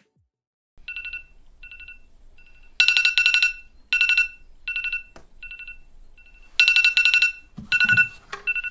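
Smartphone alarm going off: rapid electronic beeps in bursts, starting about a second in, with some bursts short and quiet and others longer and loud.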